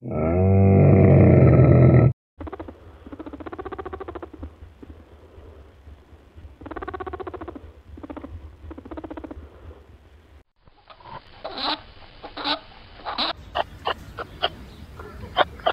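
A dromedary camel's loud, low call lasting about two seconds, cut off abruptly. Then soft, repeated low calls from a rabbit. Then a wallaby's run of sharp clicks that come faster near the end.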